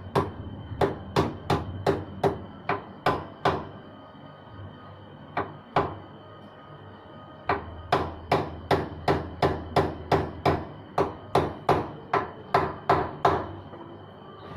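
Repeated hammer blows, about three a second, in two runs with a pause in between where only a couple of single blows fall, over a faint steady high whine.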